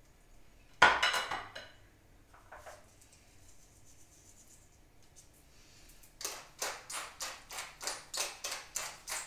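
Metal kitchen tongs set down with a sharp clack about a second in. From about six seconds in, a pepper mill is ground over the chicken in quick gritty turns, about three a second.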